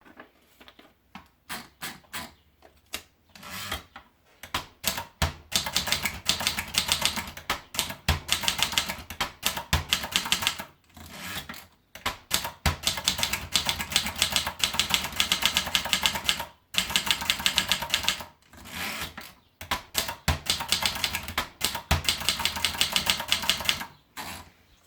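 Adler Tippa portable manual typewriter being typed on: fast runs of sharp key strikes broken by short pauses every few seconds.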